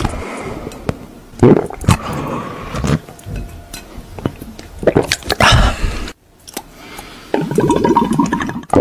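A person drinking from a glass bottle held to the lips: close-up gulps and slurping mouth sounds in several separate bursts.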